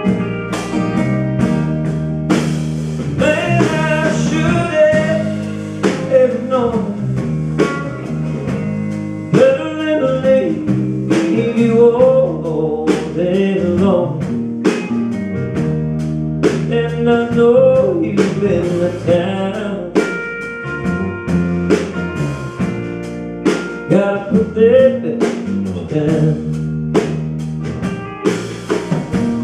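A live rock band playing an instrumental break: a lead electric guitar line with bending notes over strummed acoustic guitar, electric bass and a drum kit keeping a steady beat.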